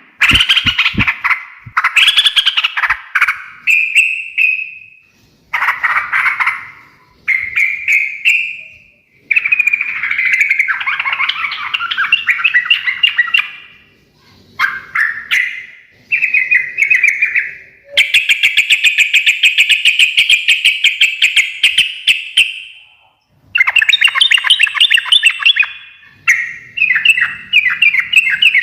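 Yellow-vented bulbul giving its fast, chattering 'ngekek' song in repeated bouts of one to several seconds with short pauses between them; the longest bout, about five seconds, comes near the middle.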